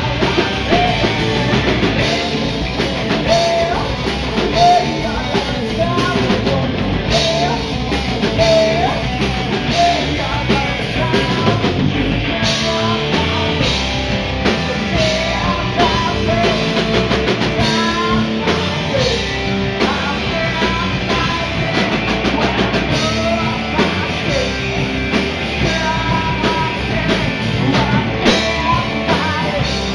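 Rock band playing: distorted electric guitars through Marshall amplifiers, bass and drum kit, with a male singer's voice over them. The music is loud and continuous, with no breaks.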